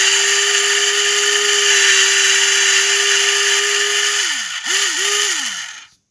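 Electric cigarette rolling machine's motor whirring steadily as it packs tobacco into a filter tube. About four seconds in it winds down, briefly speeds up again, then winds down and stops near the end as the rolled cigarette is finished.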